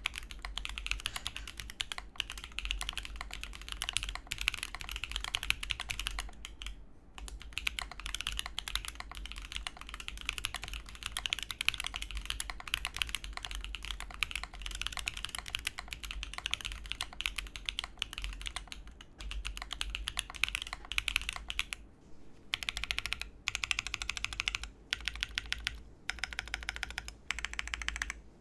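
Typing on a Neo Ergo mechanical keyboard with Gateron Pureberry switches: rapid, continuous keystrokes, with short pauses about seven seconds in and again around twenty-two seconds.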